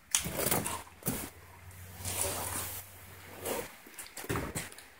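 Footsteps crunching and scraping over debris on a littered floor, in irregular steps about a second apart.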